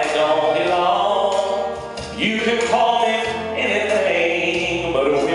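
Man singing a gospel song into a microphone through a PA, over instrumental accompaniment with a bass line.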